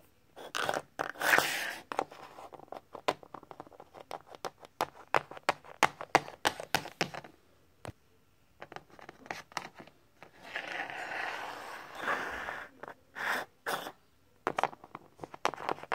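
Small plastic toy figure tapped and scraped along a wooden surface close to the microphone: a run of quick irregular clicks, with longer rubbing scrapes near the start and again around the middle.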